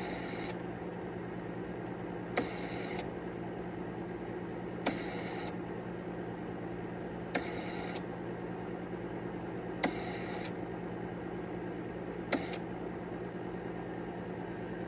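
IBM 5100's internal QIC tape cartridge drive clicking on, running for about half a second and clicking off, six times about two and a half seconds apart, as it steps through the files on the tape for a directory listing. Underneath is the steady hum of the running computer.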